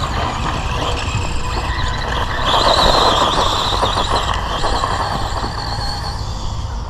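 Electric RC buggy's brushed motor and gears whining as it runs over a dirt track, over a steady low rumble. It gets louder about two and a half seconds in, then eases off.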